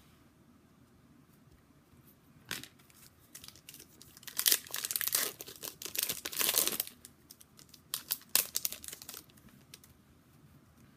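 Wrapper of an Upper Deck hockey card pack being torn open and crinkled: a sharp crackle about two and a half seconds in, then a run of loud crinkling and tearing for about three seconds, and a few more crackles near eight seconds.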